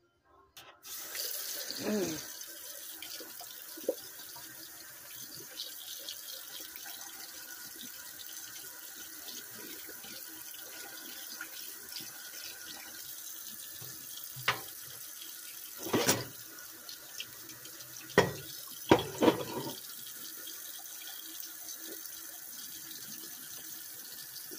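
Kitchen tap running steadily into a sink, turned on about a second in, with a few sharp knocks and clinks along the way.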